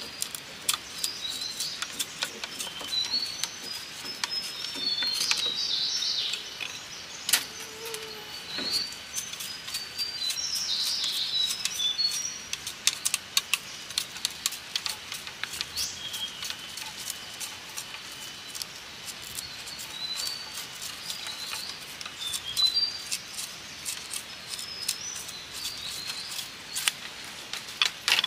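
Knife blade shaving a thin bamboo strip as it is drawn past the edge, a string of short, irregular scraping ticks. Birds chirp in the background.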